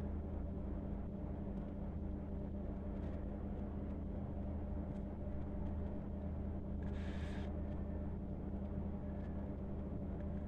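Steady low electrical hum with faint strokes of a pen writing on paper, and one brief scratchy hiss about seven seconds in.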